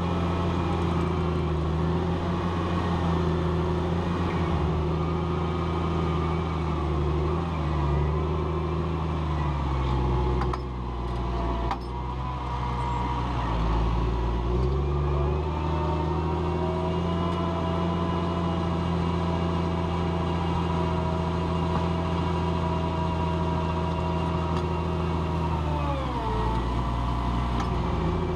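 Challenger MT765B tracked tractor's diesel engine working steadily under load while ploughing. Its pitch sags for a few seconds about ten seconds in and drops again briefly near the end as the load or revs change.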